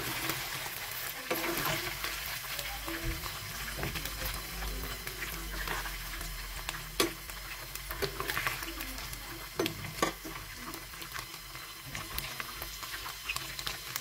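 Paneer cubes frying in hot oil in a black wok, a steady sizzle. A metal spatula scrapes and clinks against the pan now and then as the cubes are turned, with a few sharp clinks.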